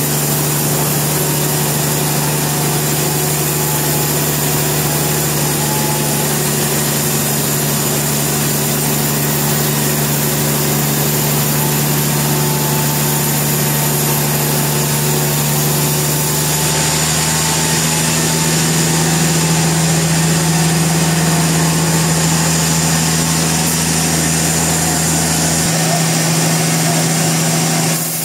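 Sawmill engine running steadily at constant speed with a steady hum. About two-thirds of the way in its sound brightens, and a low rumble drops out near the end.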